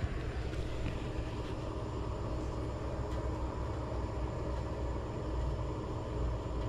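Steady low background rumble with a faint constant hum, like a running machine or distant traffic, with no sudden sounds.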